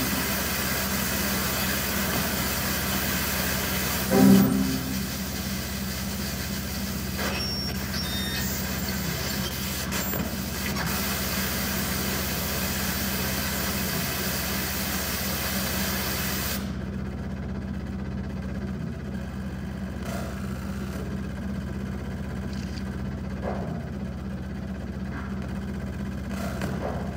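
Steady electronic hiss over a low hum, the noisy glitch sound of a deliberately corrupted computer desktop played through a hall's sound system. There is a short loud pitched blurt about four seconds in. The hiss's high end cuts off suddenly about two-thirds of the way through, leaving the low hum with faint clicks.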